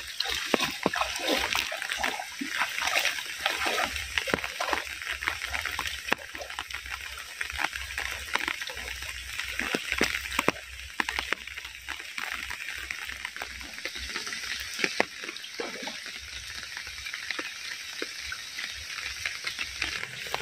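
Heavy rain falling, with a dense patter of drops and water splashing and sloshing.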